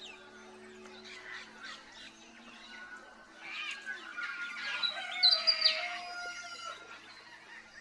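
Several wild birds calling at once in a morning chorus, with a louder, busier flurry of calls from about three and a half to seven seconds in.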